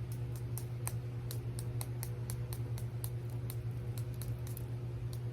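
Fruitwood-smoked garlic pepper salt being dispensed from its container onto mashed potatoes: a run of small, irregular clicks, about five a second, over a steady low hum.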